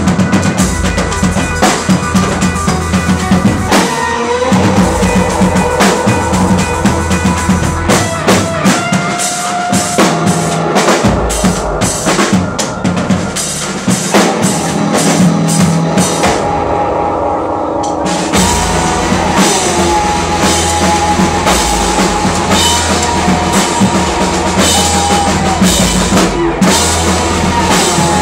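Live rock band playing loud through a club PA: a pounding drum kit with bass drum and snare under electric guitars, with held melody lines that slide between notes. The drums and cymbals drop out for about a second and a half about two-thirds of the way through, then come back in.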